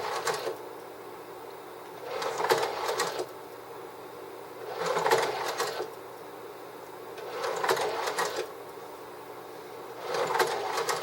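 Sears Whisper-Matic III slide projector cycling through slides: a mechanical clicking slide change about a second long, repeated four times at roughly two-and-a-half-second intervals, over the steady hum of the projector's fan.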